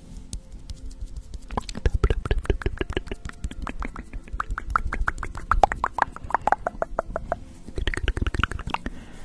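Close-up ASMR mouth sounds: a rapid run of wet clicks and pops made right at the microphone, starting about a second and a half in, with a short lull near the end before a last burst.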